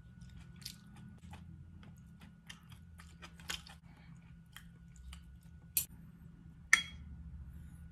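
Close-up chewing and wet mouth sounds of someone eating bulalo, a beef shank and bone-marrow soup, with many small scattered clicks. Two sharper clinks of a metal spoon against a bowl come near the end, the second ringing briefly.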